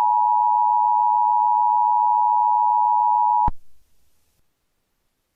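Emergency Alert System attention signal: a steady, loud two-tone electronic tone that cuts off abruptly about three and a half seconds in.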